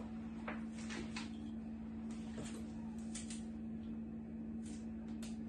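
Kitchen knife cutting through a vegetable held in the hand, the pieces dropping into a pot of chopped vegetables: a string of light, irregular clicks and taps. A steady low hum runs underneath.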